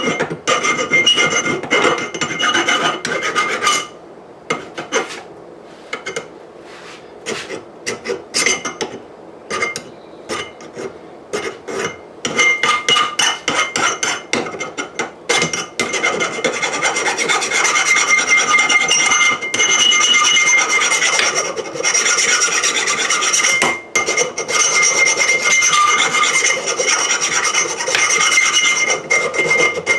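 Steel scraping harshly on steel as the sharp edges of a home-made steel anvil are cleaned up with an abrasive tool. The rasping comes in stop-start strokes at first, turns quieter and scattered for several seconds, then runs almost without a break through the second half.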